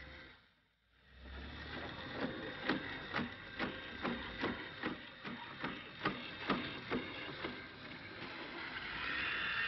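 LitterMaid automatic litter box's motor driving its rake back across the litter bed to its home position: a steady mechanical whir with regular clicks about twice a second, turning into a louder, steadier run near the end.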